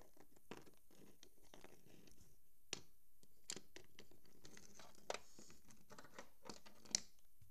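Handling noise of small plastic toy figures and the hand-held camera: scattered light clicks, taps and scratches, with the sharpest click near the end.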